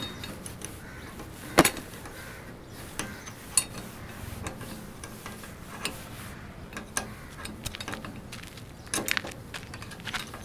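Scattered metallic clinks and knocks of hand tools at work on a motorcycle and a car under repair; the sharpest clink comes about a second and a half in, and several more follow in quick succession near the end.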